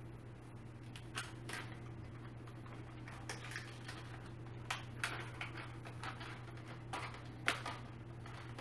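Scattered light clicks and taps of chair-assembly hardware being handled: screws and metal parts knocking together, about seven irregular clicks. A steady low hum runs underneath.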